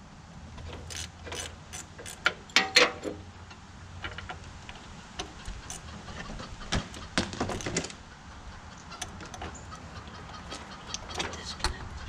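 Clicks, clinks and light knocks of hands working among the wiring and metal parts in a skid steer's engine compartment, with the sharpest knocks about two to three seconds in and again around seven seconds in.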